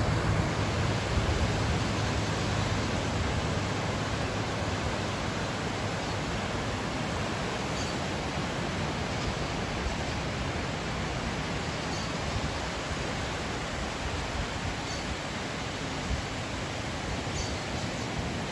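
Steady rushing noise of ocean surf, with a few faint high chirps scattered through it.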